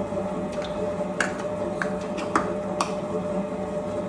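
Electric stand mixer running at a steady hum, its dough hook kneading pizza dough just after the salt has gone in. About five sharp clicks are spread over the middle two seconds.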